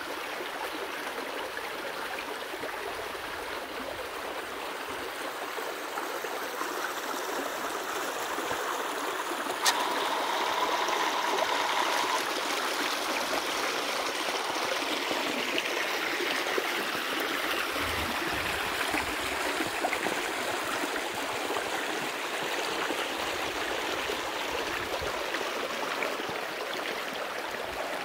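A shallow stream running over its bed, a steady rush and ripple of water that grows a little louder about a third of the way in. A single sharp click sounds about ten seconds in.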